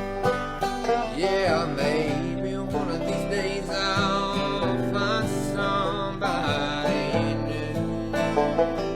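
Bluegrass band playing, with a lead line that slides in pitch in places.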